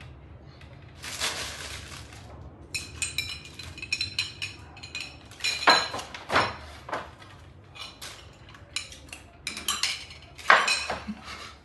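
Irregular clinking and clattering of hard objects knocking together, with a ringing edge to the hits; the loudest strikes come about six seconds in and again near the end.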